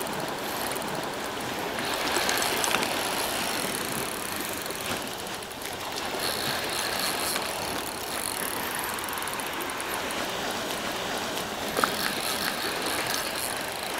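Spinning reel being cranked steadily, its gears giving a fast, fine ticking whir, as a hooked red sea bream is reeled in under load. Wind and sea hiss sit under it.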